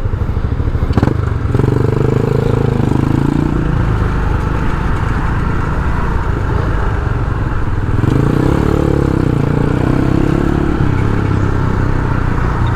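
Motorcycle engine running under way, heard from the rider's helmet. The engine note rises and eases twice as the throttle is opened and closed. There is a sharp click about a second in.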